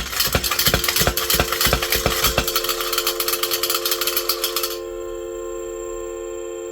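A 1984 Kay and Ward tin spinning top being pumped by its corkscrew plunger gives a run of quick metallic strokes over a rushing whir. A little under five seconds in the whir drops away, and the top spins freely with a steady humming chord of several held tones.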